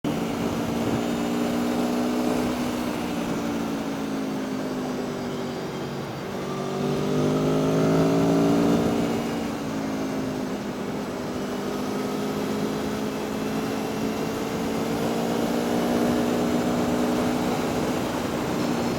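Aprilia Tuono V4 1100 RR motorcycle's V4 engine heard while riding, its pitch rising as it accelerates about a third of the way in, then dropping back and climbing slowly again, over a steady rush of wind.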